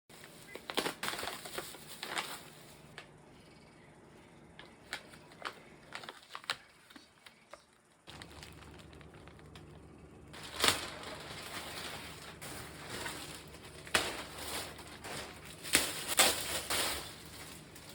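Plastic parcel packaging being handled and opened: irregular crinkling and rustling with sharp clicks and snaps, coming in bursts. There is a quieter lull a few seconds past the middle, and the loudest crinkles come near the middle and toward the end.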